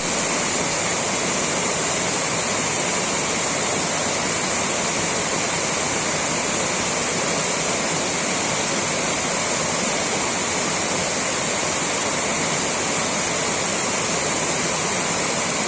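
Steady rushing water, like a waterfall or fast stream, running without a break, with a constant high-pitched hiss over it.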